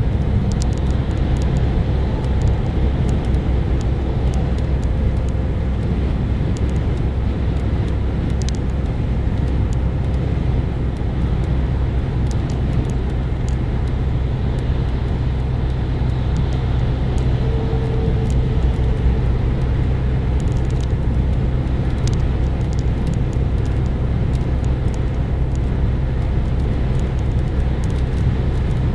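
Steady car-interior road and engine noise while driving on a wet dual carriageway, with scattered light ticks of raindrops hitting the windscreen.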